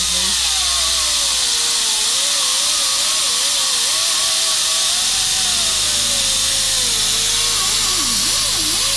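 Air-powered tool with a buffing wheel grinding the ribs on the underside of an LS6 intake manifold flat: a loud, steady air hiss with a whine that wavers and dips as the wheel bites.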